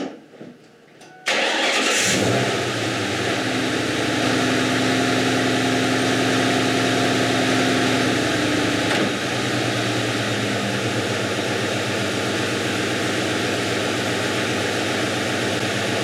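Ford Mustang GT's 4.6-litre V8 starting about a second in, then running at a steady fast idle that settles a little lower about nine seconds in. It is running with a defective ignition coil fitted to cylinder 4, which makes that cylinder misfire.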